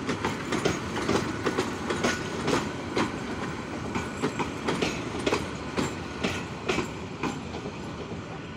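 Bangladesh Railway InterCity passenger coaches rolling past slowly, their wheels clicking over the rail joints in an uneven clickety-clack over a steady rumble.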